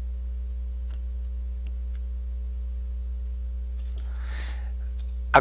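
Steady low electrical hum from the recording setup, with a few faint clicks in the first couple of seconds and a soft faint rustle about four seconds in.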